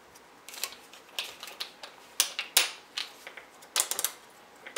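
Hario ceramic burr hand coffee grinder's adjustment nut clicking as it is twisted to set the grind size, each snap one grind step: irregular sharp clicks, singly and in quick runs, loudest about two and a half seconds in.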